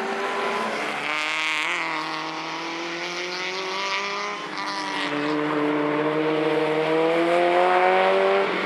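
Citroën Saxo race car's four-cylinder engine running hard on track: its note dips and bends about a second in, then climbs steadily under acceleration before breaking off near the end.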